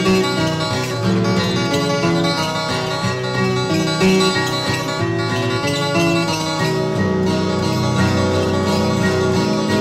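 Background music of a plucked acoustic string instrument, a steady flow of picked notes.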